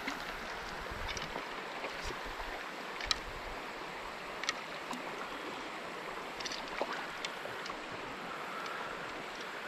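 Shallow creek water running steadily, with a handful of short, sharp splashes from a hooked smallmouth bass fighting at the surface.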